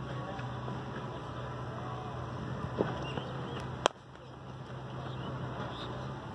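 Open-air background: a steady low hum with a few faint bird-like chirps. One sharp click comes about four seconds in, after which the background briefly drops.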